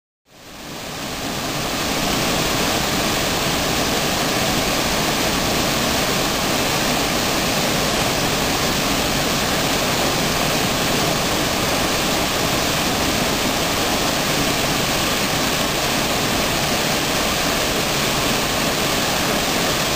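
Small waterfall pouring over a granite ledge into a pool: a steady rush of falling water that fades in over the first couple of seconds.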